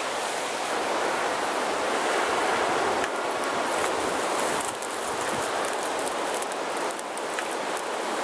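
Steady rushing breath blown into a tinder bundle to bring a flint-and-steel ember up to flame; the bundle catches alight near the end.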